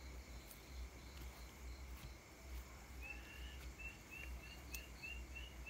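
Faint night-time outdoor ambience: a steady high insect drone under a low rumble, joined about three seconds in by a run of short, high chirps, about three a second, from an unseen small animal.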